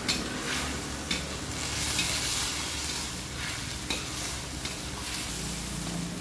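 Water spinach stir-frying in a wok with a steady sizzle, a metal spatula scraping and clacking against the wok every so often as it is tossed.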